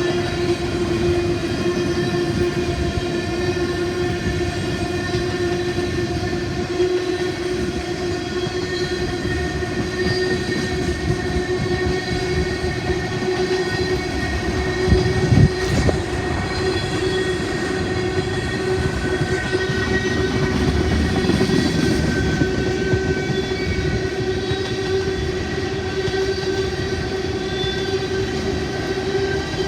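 A train rolling past, a steady rumble with a constant droning hum throughout. A single loud clank comes about halfway through.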